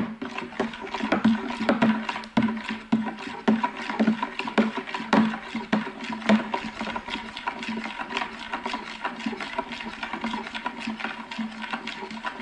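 Metal spoon stirring liquid in a ceramic bowl, clinking and scraping against the sides in rapid, irregular clicks over a low hum. It starts and stops abruptly.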